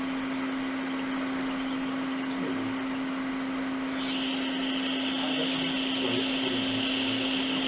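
Steady machine hum from electronics repair bench equipment, joined about four seconds in by a high hissing whine.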